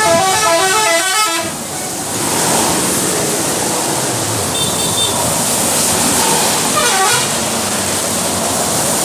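Indonesian bus 'telolet' musical horn playing a quick stepped multi-note melody that breaks off about a second and a half in, over steady road noise. Short horn notes sound again near the middle and about seven seconds in.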